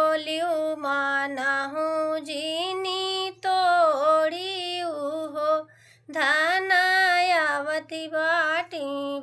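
A woman sings a North Indian wedding folk song (vivah geet) solo and unaccompanied, in long held, gliding phrases. There is a short pause for breath about six seconds in.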